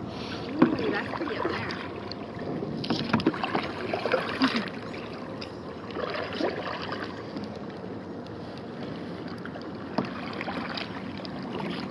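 Kayak paddles dipping and splashing in calm water, with drips and gurgles off the blades. The splashing comes in clusters a few seconds apart, with one sharp click about ten seconds in.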